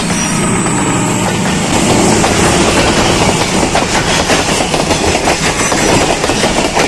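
Passenger train coaches running past at speed a few metres away: a loud, steady rush of wheels on the rails with fast, close-set clattering from the wheels crossing the track.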